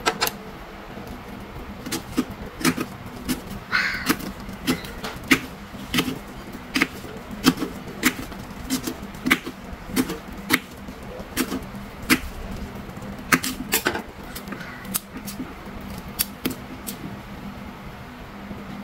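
Knife cutting notches into the rind of a watermelon on a wooden chopping board: a series of sharp, irregular clicks and knocks, roughly one or two a second, with a short crisp scrape about four seconds in. A low steady hum runs underneath.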